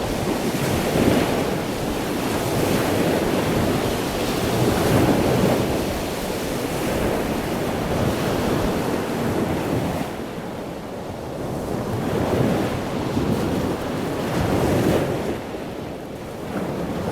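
Ocean surf: waves swelling and washing back in a steady, rolling rush, rising and falling every two to three seconds.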